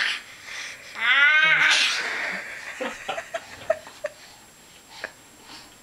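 A baby's high-pitched squeal, rising in pitch about a second in and trailing off into breathy sounds. A few faint clicks and knocks follow.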